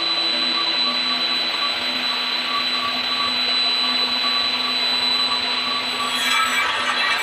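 Table saw running steadily as a round, bark-covered log is fed slowly into the blade. The sound turns brighter and harsher near the end.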